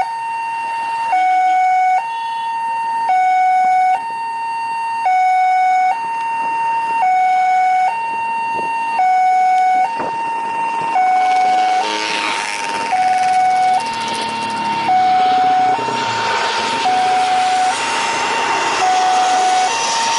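Two-tone hi-lo siren, switching between a high and a low note about once a second. From about halfway through, the rising rush of a jet airliner's engines on final approach builds under it as the plane comes in low.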